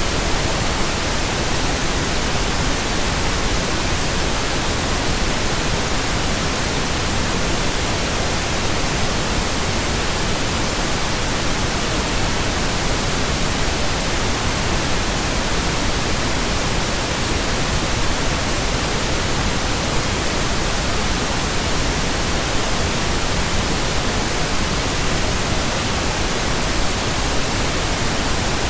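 Synthesized pink noise: a steady, even hiss spread across all pitches, unchanging throughout.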